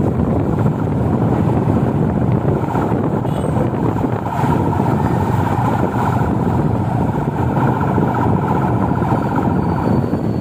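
Steady engine and traffic noise mixed with wind on the microphone, heard from a vehicle moving along in street traffic.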